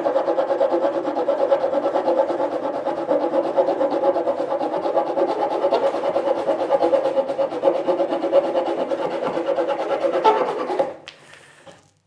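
The small folding saw blade of a Leatherman Wave multi-tool cutting through a piece of hard maple with quick, steady back-and-forth strokes. The sawing stops near the end.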